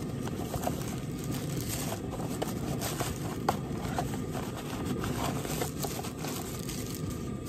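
Tissue paper and small cardboard parts packets rustling and crinkling as hands sort through a box of parts, with scattered small crackles. A steady low rumble of background noise runs underneath.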